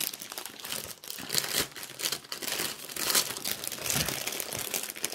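Clear plastic wrapping on a rolled diamond-painting canvas crinkling in irregular rustles as it is handled.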